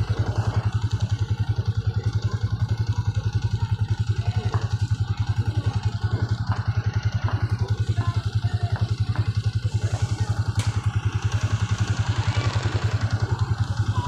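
Small Honda motorcycle's engine idling with a steady, even putter.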